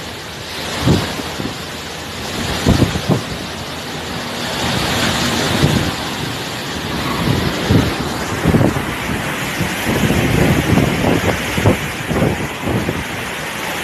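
Hurricane wind and driving rain: a steady rushing noise, with repeated gusts thumping against the phone's microphone.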